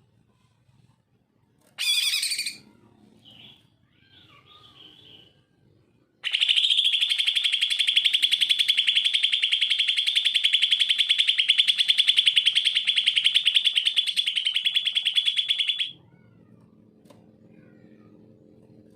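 Cucak ijo (leafbird) singing: a short loud call, a few soft notes, then a long, fast, even trill lasting nearly ten seconds that stops abruptly.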